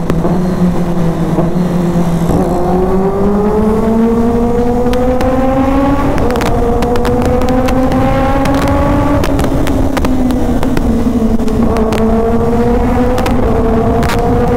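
Kawasaki ZX-10R's inline-four engine accelerating, heard from the rider's seat inside a tunnel. Its pitch rises with the revs and drops sharply at upshifts about six and nine seconds in, eases off for a moment, then climbs again near the end.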